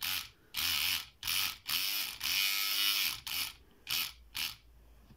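Kronos lock pick gun running in about eight short bursts, one longer near the middle, rattling the pins of an IFAM padlock as it works to open it.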